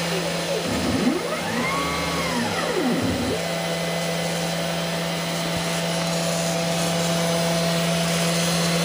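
OX CNC router running without cutting: its 48 V quiet-cut spindle hums steadily while the stepper motors drive the carriage. The motors whine up and back down in pitch as an axis speeds up and slows down in the first three seconds, then hold a steady higher tone from about three and a half seconds in.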